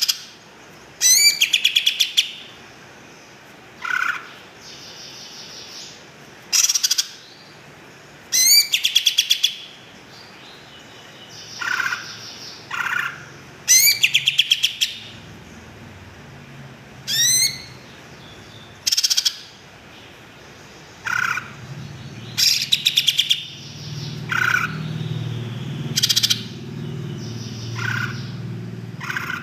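Cucak ijo (green leafbird) singing: loud phrases of rapid rattling trills and sharp upswept whistles, one every couple of seconds. A low hum joins in for the last few seconds.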